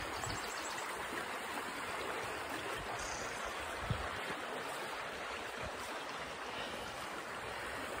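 River water flowing: a steady rush, with one soft thump about four seconds in.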